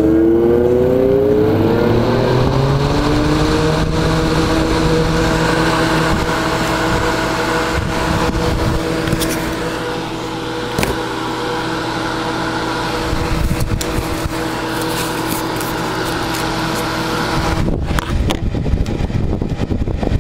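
Vintage Comair Rotron Gold Seal AC axial muffin fan spinning up: its hum of several tones rises in pitch over the first few seconds, then settles into a steady tone over a rush of air. Near the end the tone drops out, leaving a rougher rushing noise with a few knocks.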